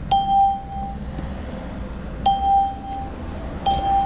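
Ticket vending machine touchscreen beeping as it is tapped: three single steady mid-pitched beeps, each under a second long, the second about two seconds after the first and the third just over a second later, over a low steady background hum.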